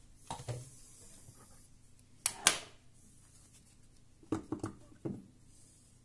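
Light knocks and clicks of small objects being handled and set down on a wooden desk: a couple of soft knocks at the start, one sharp click about two and a half seconds in, and a quick cluster of three or four knocks near the end.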